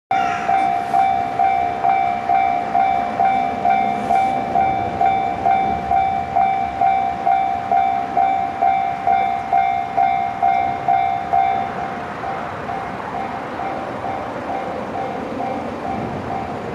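Japanese railway level-crossing warning alarm ringing its electronic bell tone at about two strikes a second. About twelve seconds in it becomes quieter and its higher overtones drop out.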